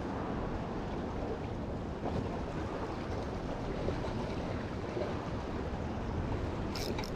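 Steady wash of small waves on a rocky shoreline mixed with wind rumbling on the microphone. A few quick clicks come just before the end.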